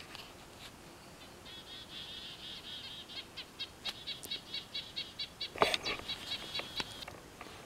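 A small songbird singing a long run of quick, repeated high chirps, which breaks into separate notes about four a second toward the end. A few brief crackles and rustles from footsteps or handling in dry forest litter come a little past the middle.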